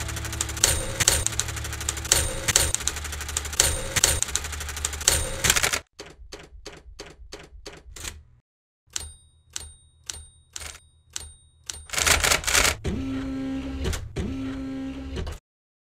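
Typewriter sound effect: a fast run of key strikes, then slower single keystrokes, some with a high ringing tone over them, and two longer sliding sounds near the end before it cuts off suddenly.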